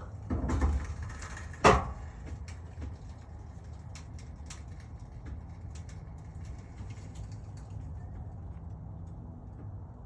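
Workshop handling noise as the jacked-up trailer is lowered: a brief scraping rush, then one sharp knock a second and a half in. Scattered light clicks and taps follow over a steady low hum.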